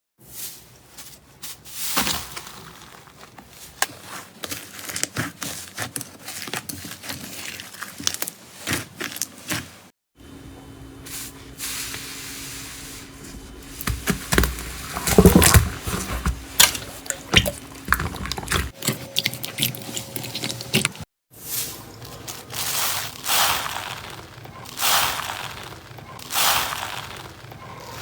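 Slime being squeezed, stretched and pressed by hand, with wet squishing and dense crackling and popping. The sound changes abruptly a few times as one clip gives way to another.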